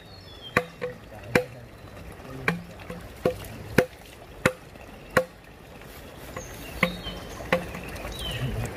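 Chopping: a dozen or so sharp blows at an irregular pace, each with a short ringing tone, pausing about five seconds in before a few more strikes. Faint short bird chirps over the top.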